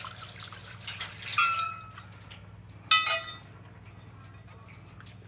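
Goose juices poured from a stainless-steel pot over a roasted goose in its roasting pan, liquid splashing for about two seconds. Then two ringing metal clinks of pot against pan or rack, the louder about three seconds in.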